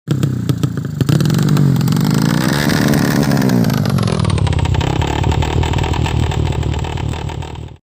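Tuned 130cc drag-bike engine revving hard, its pitch rising and then falling around the middle, before the sound cuts off abruptly near the end.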